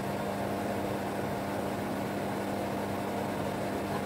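Steady appliance hum over a low, even sizzle of chopped garlic frying in a little oil in a wok.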